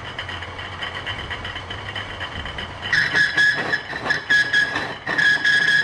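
Antique Selig Sonnenthal lathe running under its half-horsepower electric motor with a low hum. About three seconds in the cutting tool starts to screech against the workpiece, a loud high squeal that stutters on and off: chatter from the tool digging in, which the operator puts down to slack in the carriage.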